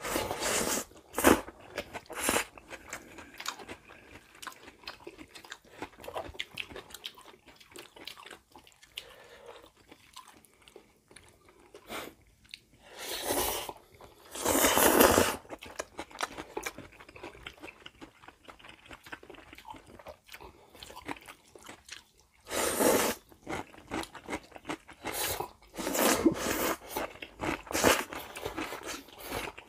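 Two people eating Jjapaghetti black-bean instant noodles with chopsticks: several loud slurps of noodles, the longest lasting about a second, with wet chewing and small mouth noises in between.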